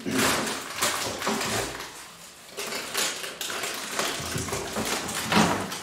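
Rummaging through a packed kitchen cupboard: packets rustling and containers knocking and clinking against each other.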